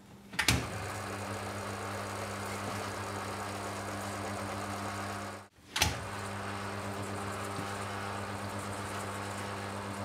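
Induction motor from a Miele washing machine switched on with a click, running with a steady low hum as it spins the drum pulley through the belt. Near the middle it cuts out for a moment, another click follows, and it runs on with the same hum.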